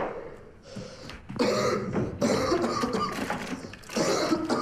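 A man coughing and gasping hoarsely for breath in several strained bouts, the sounds of a breathing attack that calls for his spray inhaler.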